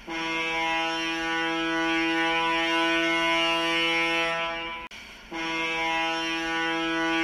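Ship's whistle sounding two prolonged blasts of one steady, low tone. The first lasts about four and a half seconds; after a brief break the second starts about five seconds in. These are the first part of the overtaking signal 'two prolonged and two short blasts', meaning 'I intend to overtake you on your port side'.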